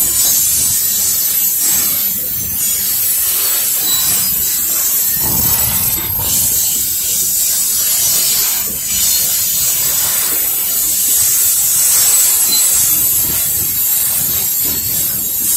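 Freight train of steel coal cars rolling past: a steady hiss and rumble of steel wheels on the rails, with a clunk every second or two as wheels pass over rail joints.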